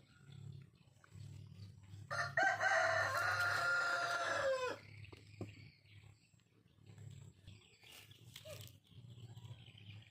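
One long animal call, about two and a half seconds, held then dropping in pitch as it ends, over a steady low hum, with a few faint clicks later on.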